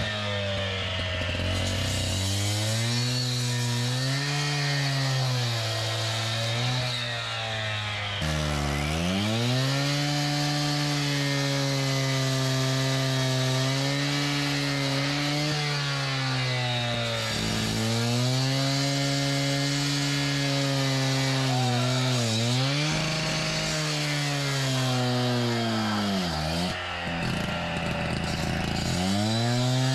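Power cutting tool running continuously, its motor pitch dipping and recovering several times as it bogs under load, typical of cutting into brick and mortar.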